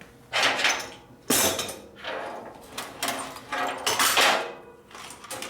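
Metal tools and parts clattering and clinking in several short bursts, one starting sharply about a second in and more around three and four seconds in.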